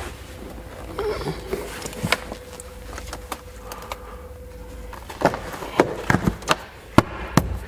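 Plastic interior trim panels of a Mercedes C-Class W206 being pressed and clipped back into the passenger-side dashboard: scattered clicks and knocks, coming thick and fast in the last few seconds.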